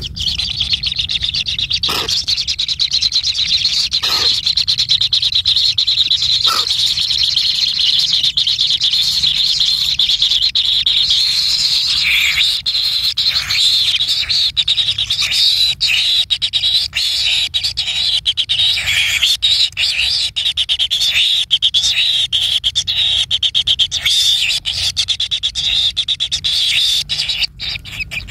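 A bird calling with a continuous, rapid, high rasping chatter, broken by three short lower sounds in the first seven seconds.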